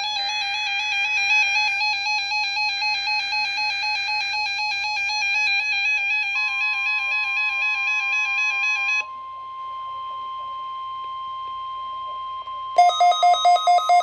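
Electronic alert tones. A fast-warbling alarm tone sounds until about nine seconds in. Under it, from about six seconds in, the NOAA Weather Radio warning alarm tone starts, a steady high pitch that is left alone for a few seconds, and near the end a pulsing beep joins at about four beeps a second.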